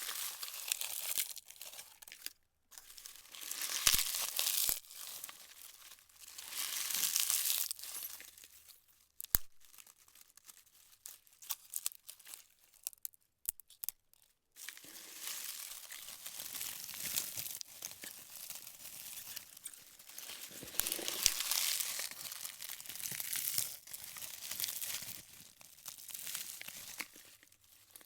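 Dry leaves crunching and crackling in bursts, with a stretch of only scattered small crackles through the middle, then nearly continuous crunching through the second half.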